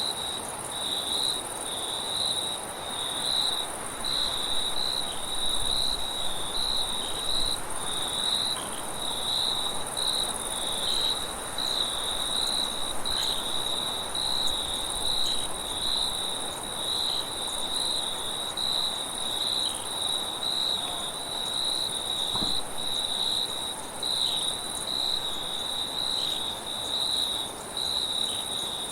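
Crickets chirping without pause, a steady high trill broken by short regular gaps, over a soft, even wind hiss.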